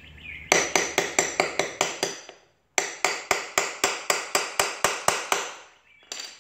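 Hammer tapping a metal seal-driver tool to drive a new dust seal into a motorcycle wheel hub: two runs of quick metallic taps, about five a second, with a short break between them, and one last tap near the end.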